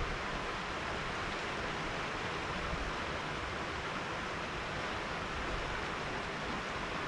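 Steady, even rush of river water flowing past a rocky bank.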